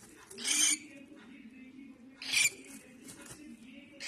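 Cockatiel chick giving short, raspy, hissing calls about two seconds apart.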